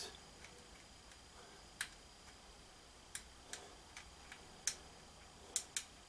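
About eight faint, irregular sharp clicks and taps of small metal hardware and a tool on a ceiling fan-light fixture as it is held in place and screwed to its mount.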